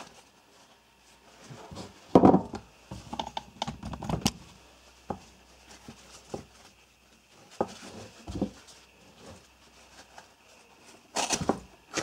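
Handling noise on a wooden tabletop: scattered knocks, clicks and thuds with rustling as a roll of nylon seatbelt webbing is unrolled and a knife is laid down, the loudest knock about two seconds in.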